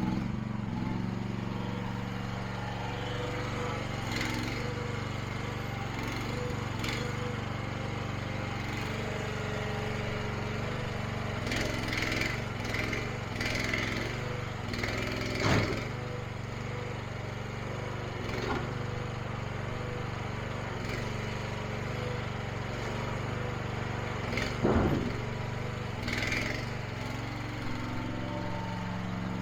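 Small 212cc single-cylinder gasoline engine running steadily under work. Several sharp knocks and clunks come over it, bunched around the middle and loudest near the middle and toward the end.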